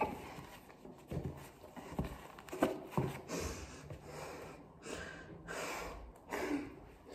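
A person breathing out hard several times, with a few soft knocks and rustles of movement.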